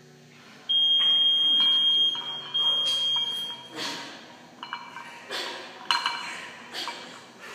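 A gym interval timer's single long, high beep lasting about three seconds, signalling the start of a new minute of the every-minute workout. After it, a run of sharp metallic clinks and rattles from loaded barbells being push-pressed overhead.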